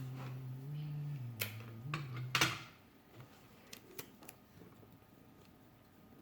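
A low hummed voice tone, stepping up and down in pitch, for the first two and a half seconds, with a sharp click about a second and a half in and a louder click about two and a half seconds in; then a few faint clicks and taps of plastic toy parts being handled.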